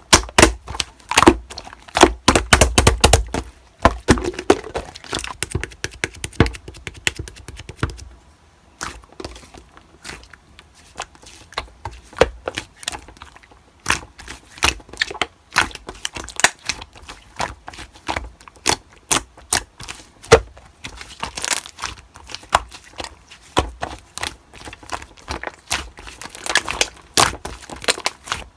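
Slime being squeezed, stretched and poked by hand, giving a dense run of sticky crackling clicks and pops. They are busiest and loudest in the first four seconds, with a few low thuds, then come in sparser runs.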